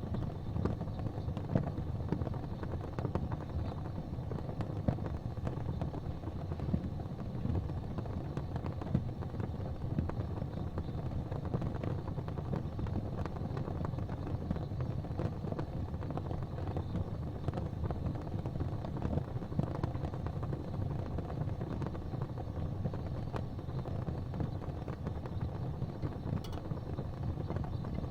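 Gas fireplace flames burning with a steady low rumble, with faint scattered ticks.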